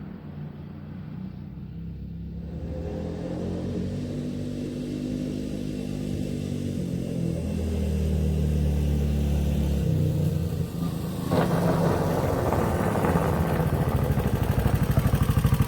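Honda ATC 185S three-wheeler's single-cylinder four-stroke engine running as it is ridden. Its note shifts pitch in steps and grows steadily louder, and near the end it is close by with a loud, even exhaust putter.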